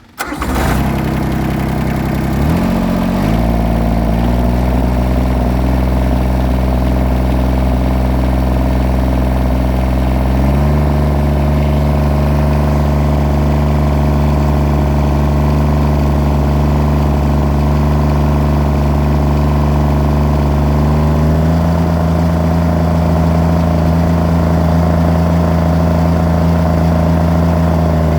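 John Deere 332 garden tractor's three-cylinder diesel engine starting and running, its speed stepped up three times: a few seconds in, about ten seconds in and about twenty seconds in. It is misfiring, which is worst from cold and eases as it warms.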